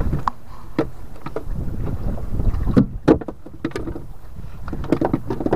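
Knocks and taps on the wooden deck and hull of a small fishing boat, several in quick succession about three seconds in and again near the end, over wind buffeting the microphone and water moving against the hull.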